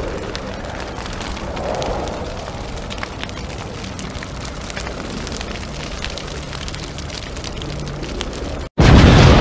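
Steady crackling noise with many scattered clicks. A little before the end it cuts off abruptly and a much louder rushing noise takes over.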